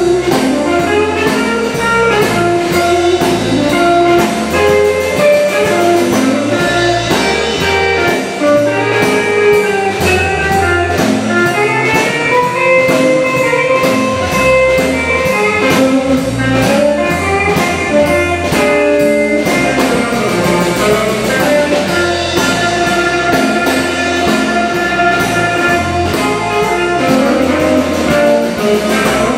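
Live blues band playing an instrumental passage: electric guitar, electric bass and drum kit, with an amplified harmonica playing long held notes.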